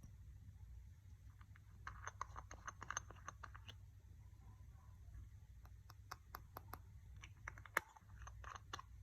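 Slime being worked by hand, giving two runs of quick, crisp little clicks and pops, with one sharper pop near the end.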